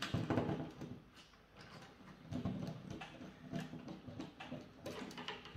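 Faint handling noise of an insulated electrical wire being pulled and laid across a bench, with scattered small clicks and rustles.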